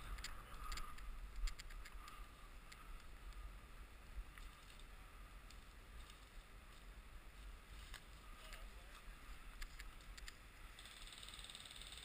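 Faint outdoor handling noise: scattered light clicks and rustles over a steady low rumble, with a brief hiss near the end.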